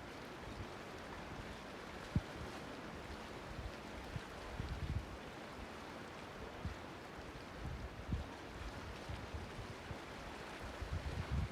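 Harbour-side sea ambience: a steady wash of water and waves, with irregular gusts of wind buffeting the microphone in low rumbles, strongest about halfway through and near the end.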